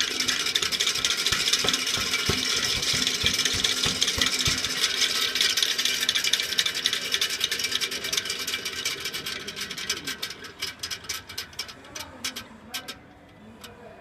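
A diesel engine's fluid coupling turning on its shaft, giving a fast, dense rattling and clicking that slows and dies away in the last few seconds, ending in a few separate clicks. This is extraneous noise from the coupling as its shaft rotates.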